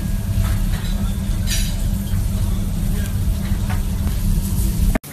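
Eggplant kebab skewers sizzling over a charcoal grill, a fine hiss with faint crackles over a steady low rumble. It cuts off abruptly near the end.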